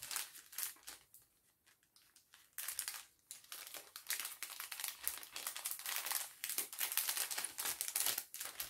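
Packaging crinkling as it is handled and folded away: a few crinkles at first, a short lull, then continuous crinkling and rustling from about two and a half seconds in.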